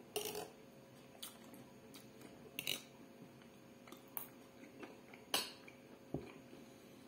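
Cutlery clinking against a plate while eating: about half a dozen short, separate clinks spread over several seconds.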